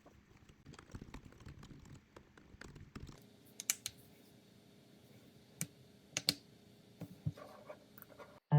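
Typing on a computer keyboard: a quick run of soft key clicks for about three seconds, then only a few scattered, sharper key clicks.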